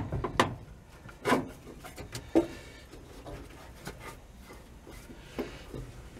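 Handling noise as a rubber boot is pushed down over a steel parking-brake lever at the cab floor: rubbing with a few sharp knocks, the loudest about half a second in and again about two and a half seconds in.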